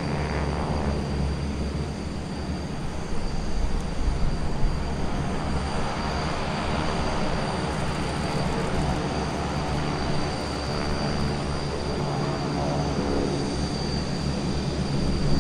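Several North American SNJ-2 trainers' radial engines running at full power on the takeoff roll and climb-out, a steady propeller drone that swells twice as pairs of aircraft pass, over a steady high whine.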